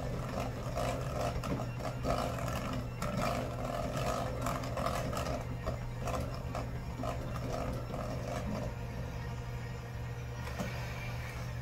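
Electric hand mixer running on low, its beaters creaming butter in a stainless steel bowl: a steady motor hum with the beaters rattling and scraping against the bowl, the rattle easing near the end.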